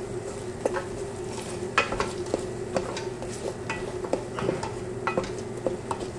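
A spoon stirring chicken pieces in a metal pot, knocking and scraping against the pot at irregular moments, over the steady sizzle of the chicken cooking in melting vanilla ice cream. A steady low hum runs underneath.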